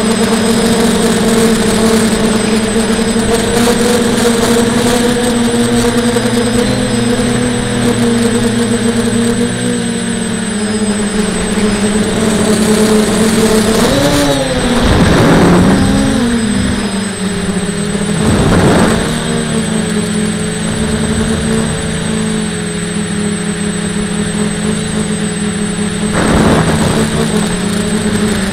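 Electric motors and propellers of a camera-carrying RC drone in flight, heard from its onboard camera as a steady buzzing hum, its propellers poorly balanced by the owner's account. The pitch wavers briefly about halfway, with a few short rushes of air in the middle and near the end.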